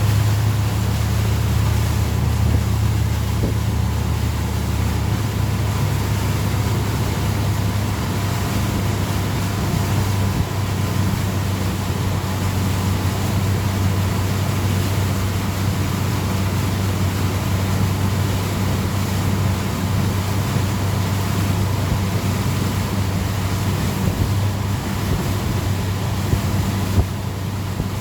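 Tow boat's motor running at a steady towing speed, a constant low hum, with rushing wind and water noise over it.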